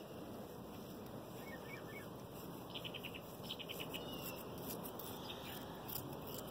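Quiet outdoor background hiss with faint bird chirps, including a quick run of short chirps about three seconds in, and a few light rustles toward the end.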